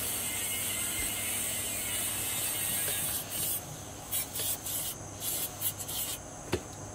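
Angle grinder with a cutoff wheel cutting through steel plate, a steady high hiss. About halfway through it goes on in short uneven bursts, stops about six seconds in, and a single sharp clink follows.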